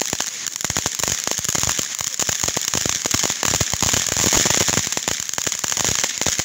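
A ground fountain firework spraying sparks: a steady hiss under rapid, dense crackling pops.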